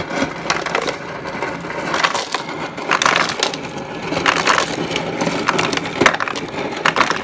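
Refrigerator door ice dispenser dropping ice cubes into a plastic zip-top bag: a continuous clattering rattle of cubes striking the plastic and one another.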